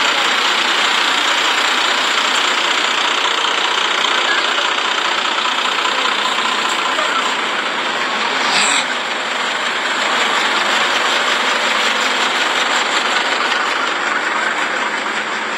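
Fire truck engine running steadily, with a single short knock a little past halfway.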